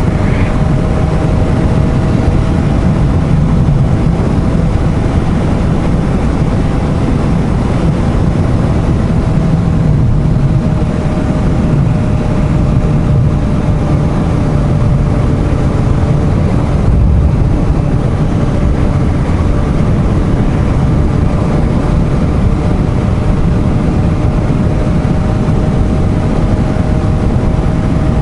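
Suzuki GSR750 motorcycle cruising at a steady speed: a heavy, even rush of wind over the microphone with a steady engine note underneath.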